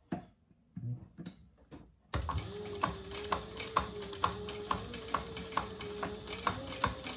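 Sewing machine stitching slowly along a folded fabric strap, its motor giving a steady whine with a click at each stitch, about two a second. A few separate handling clicks come before it starts, about two seconds in.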